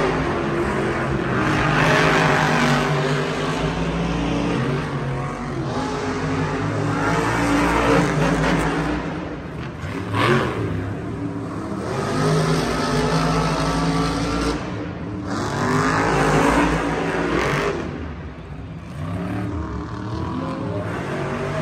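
Several monster trucks' supercharged V8 engines running and revving as they drive around the dirt arena, with louder surges of acceleration about ten seconds in and again around sixteen seconds in.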